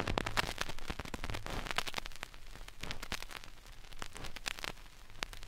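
Vinyl 45 rpm single playing its run-in groove before the music: surface noise of irregular crackles and pops, several a second, over a faint low hum.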